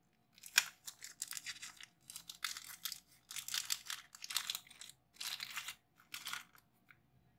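Packaging crinkling and rustling in a string of irregular bursts while the new DDR3 RAM sticks are handled before fitting.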